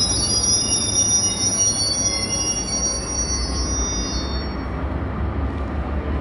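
Steel wheels of Amtrak passenger cars squealing as the cars creep together to be coupled, several steady high-pitched tones at once that fade out about four to five seconds in, over a steady low rumble.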